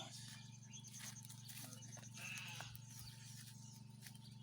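Faint bleating from a farm animal, a short call or two about halfway through, over a steady low hum.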